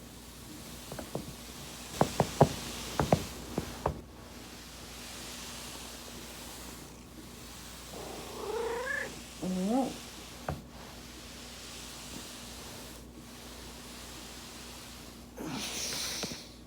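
A run of sharp cracks from the spine or joints being popped on a foam roller, then about eight seconds in a cat meowing twice, the second call rising in pitch.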